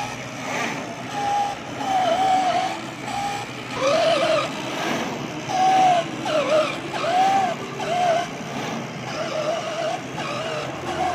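CNC flatbed fabric-cutting machine's drive motors whining as the gantry and cutting head move, the pitch rising and falling with each speed-up and slow-down and the whine starting and stopping every second or so.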